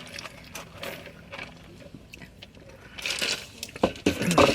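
Close-up eating sounds: chewing and handling of fast-food packaging, with scattered clicks, a rustle about three seconds in and a sharp knock just before the end.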